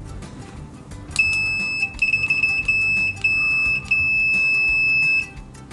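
ANENG SZ08 multimeter's continuity beeper sounding a steady, really loud high-pitched tone with the test leads shorted together. It starts about a second in, drops out briefly a few times and stutters once, then stops a little after five seconds.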